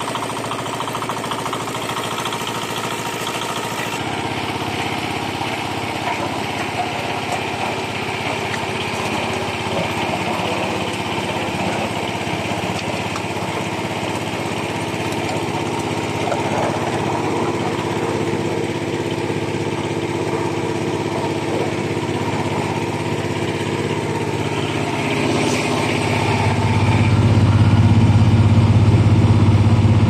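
Small 8-horsepower single-cylinder diesel engine running steadily as the power source of a plastic baler. A louder low hum builds about four seconds before the end and eases off just as it ends.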